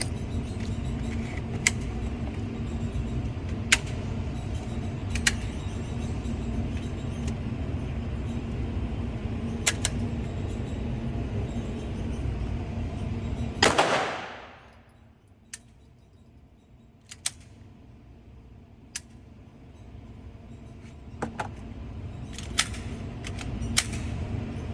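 Scattered sharp gunshot cracks, about ten spread through the stretch, over a steady low hum. About fourteen seconds in there is a brief loud rush, then the hum cuts out and slowly builds back up.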